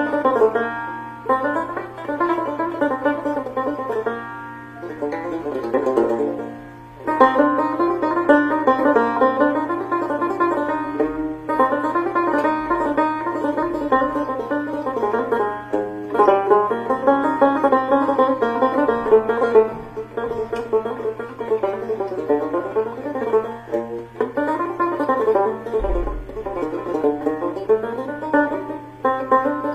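Background music played on a plucked string instrument, a quick, busy run of notes with short breaks between phrases, over a steady low hum.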